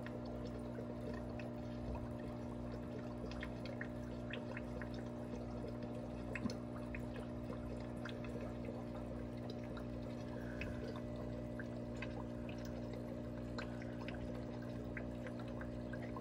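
Aquarium water trickling steadily, with small scattered ticks and drips over a steady low hum of tank equipment.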